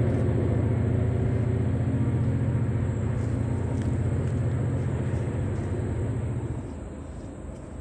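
EMD diesel locomotive engine running with a low, pulsing rumble that drops away about six and a half seconds in.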